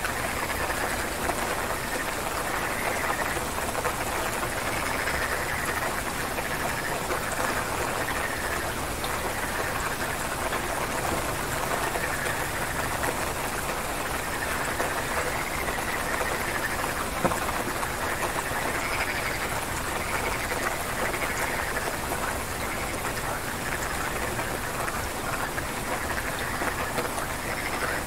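Steady rain falling, with frogs calling in short repeated calls every couple of seconds over it.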